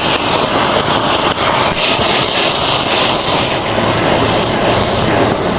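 Anar (flower-pot fountain firework) burning, a loud steady rushing hiss as it sprays a column of sparks.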